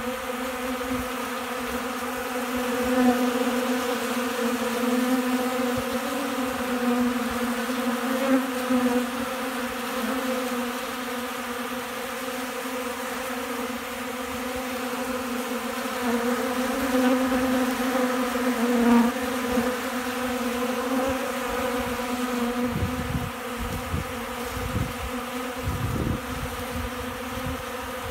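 Many honey bees buzzing close by, a steady low hum with a clear pitch and overtones. A few low thumps come near the end.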